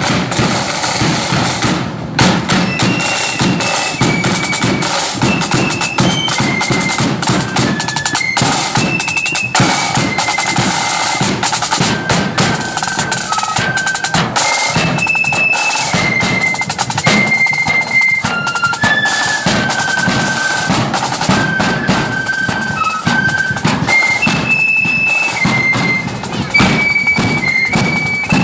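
Marching flute band playing: snare and bass drums beat out the rhythm, and about two seconds in the flutes come in with a high marching tune over the drums.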